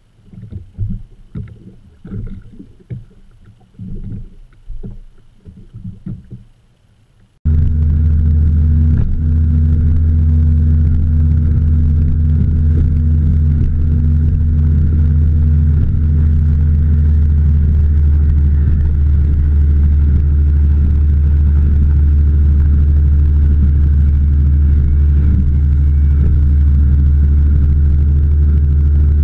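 Bass boat running fast across open water: a loud, steady engine drone held at constant speed, with water rushing past the hull and wind on the microphone. It starts abruptly about seven seconds in; before that there is only uneven low buffeting while the boat sits still on the water.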